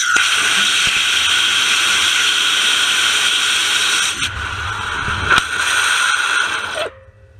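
Rocket engine of about 210 kgf thrust firing on a static test stand: a loud steady hiss with a whistling tone on top, a brief dip about four seconds in and a sharp crack about five and a half seconds in, then cutting off suddenly at shutdown near the end.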